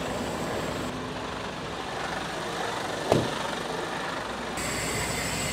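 Steady truck and traffic noise, with a single short knock about three seconds in.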